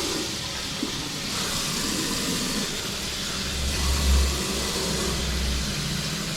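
Water running hard and steadily from an opened tap, a constant hiss that starts suddenly at the outset, as the newly chlorinated water supply is flushed through the pipes. A low rumble joins in about halfway through.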